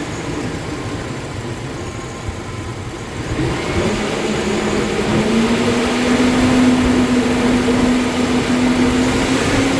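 GMC Sierra V8 engine running at a steady idle, then rising to a slightly higher steady speed and getting louder about three and a half seconds in. The engine is misfiring intermittently on cylinders 8 and 4.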